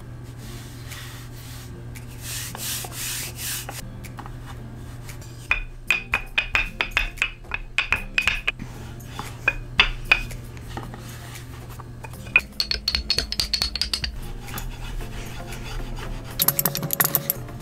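A hand brushing flour across a wooden cutting board, then a wooden rolling pin rolling a sheet of pie pastry on the floured board, with a run of quick clicks and knocks of the pin on the wood and a few sharper scrapes near the end.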